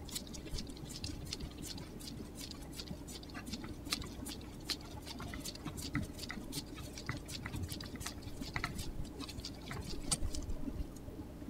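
Faint, scattered small clicks and scrapes as a Tektro hydraulic disc-brake lever blade is worked off its pivot by gloved hands, over a low steady hum.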